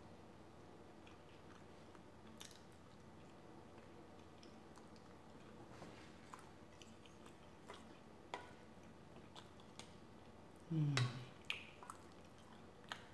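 Close-miked chewing of a forkful of chicken tikka masala and rice, with soft wet mouth sounds and scattered small clicks from the fork and mouth. A brief low hum of the voice comes about eleven seconds in.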